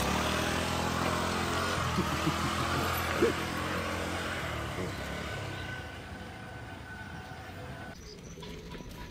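A motor vehicle going by on the road, its engine hum and tyre noise loudest in the first few seconds and then fading away.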